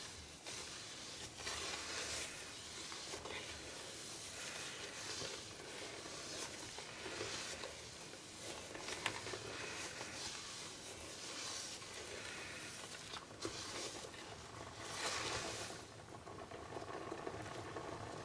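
A wooden spoon stirring hot liquid soap and salt in a stainless steel pot: faint swishing and sloshing strokes every second or two, with a few light knocks, while the salt dissolves and the soap begins to separate into curd.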